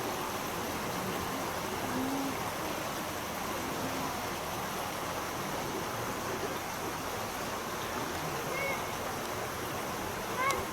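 Shallow river water flowing steadily over its bed. Two brief low calls come about two and four seconds in, and short bird chirps are heard twice near the end.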